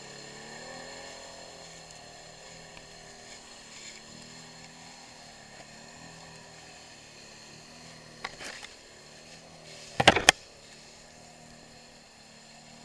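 Arctic Cat 700 ATV engine running at low, steady revs, its pitch shifting briefly in the first second. A few sharp knocks come about eight seconds in, and a louder cluster about ten seconds in.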